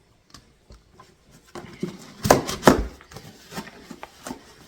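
Handling noise of a cardboard box of satsumas being moved: light rustles and clicks, with two loud knocks about two and a half seconds in.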